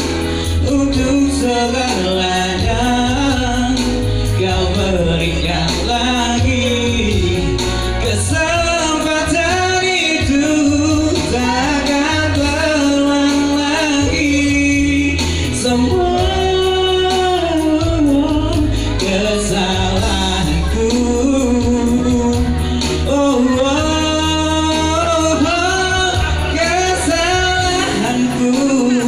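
A man singing a slow ballad into a microphone over electronic keyboard accompaniment with a strong steady bass, amplified through a PA system.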